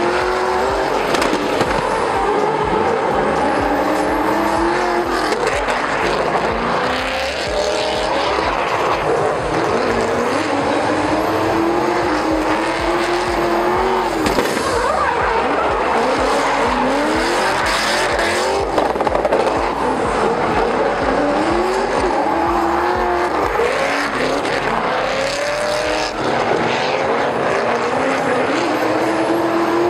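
Two drift cars, one a Subaru, revving hard in tandem, their engine pitch climbing and dropping again every couple of seconds, over continuous tyre squeal and skidding.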